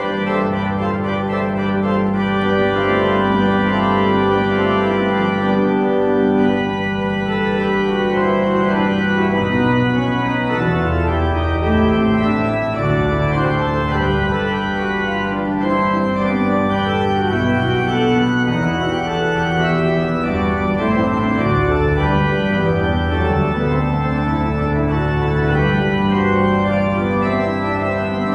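Church organ playing the postlude that closes the service, full held chords over a slowly moving bass line, starting abruptly.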